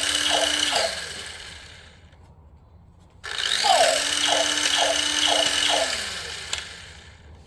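Small electric motor and gearbox of a remote-controlled toy robot running in two spells, each spinning up, holding a steady whine and winding down; the second starts about three seconds in.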